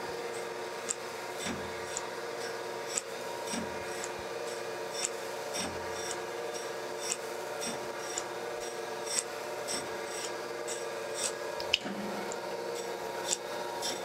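Thompson surface grinder taking a light pass on a belt-grinder platen with a freshly dressed wheel: a steady machine hum under a soft rubbing grind. Sharp ticks come about once a second, and dull thumps about every two seconds.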